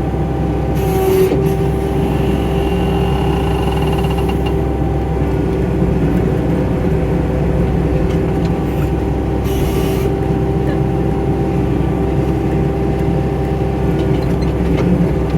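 Skid steer engine running steadily with a constant whine, with a short hiss about a second in and again about ten seconds in.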